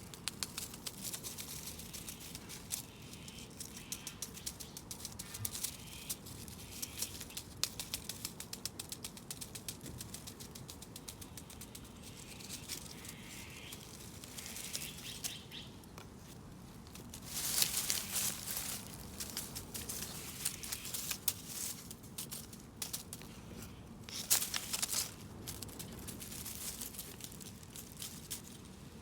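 Light rustling with many small clicks and taps, broken twice in the second half by louder bursts of rustling.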